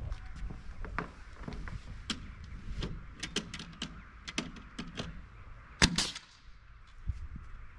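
Scattered clicks and knocks of a corded power drill being handled and set against an OSB subfloor panel, with one loud sharp knock and a short rasp just before six seconds in. Low wind rumble on the microphone underneath.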